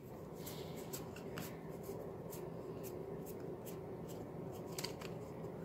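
Pokémon trading cards being handled and slid against one another in the hands: a soft, irregular run of flicks and rustles.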